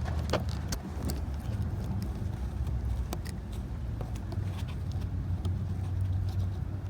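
Scattered light clicks and taps as a quick-connect release tool is worked behind a plastic heater hose quick connect, over a steady low rumble.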